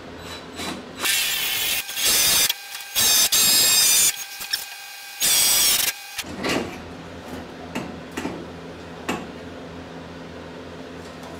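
Power drill drilling out seized screws in the wooden body frame, in four short runs of under a second each, the bit working through the screw heads. A few small handling clicks follow.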